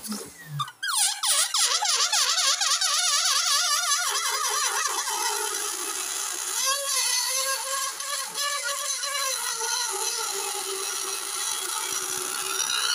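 Air squealing out of an inflated latex balloon through its stretched-open neck: a loud, wavering whine whose pitch wobbles quickly up and down and drops lower after a few seconds as the balloon empties.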